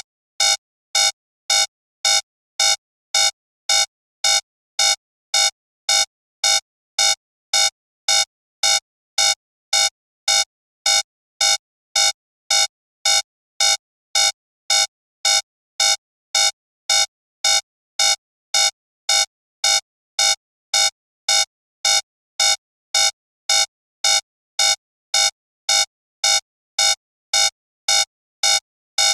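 Electronic timer alarm beeping, starting abruptly and repeating at an even pace of about two beeps a second: the signal that the one-minute countdown has run out.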